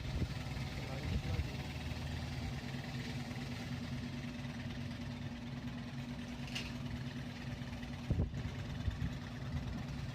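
A small engine running steadily at an even speed, with a couple of light knocks about eight seconds in.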